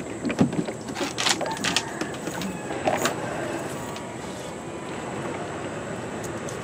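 A cast net and fish being handled in a small boat: a few sharp knocks and rustles in the first three seconds, then a steady hiss.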